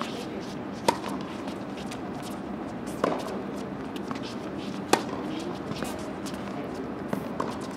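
Tennis ball hit back and forth with rackets in a doubles rally: three sharp hits about two seconds apart, the one about five seconds in the loudest, then a couple of fainter knocks near the end, over a steady faint hum.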